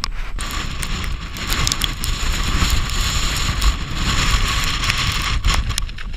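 Strong, gusty mountain wind buffeting the camera's microphone in a deep, uneven rumble, with a steady hiss of wind-driven rain or sleet over it.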